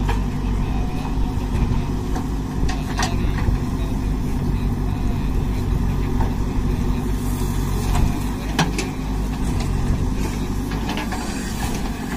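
JCB 3DX backhoe loader's diesel engine running steadily under load as the backhoe digs and lifts mud, with a few sharp clanks from the bucket and arm. About seven seconds in there is a brief hiss of soil spilling from the raised bucket.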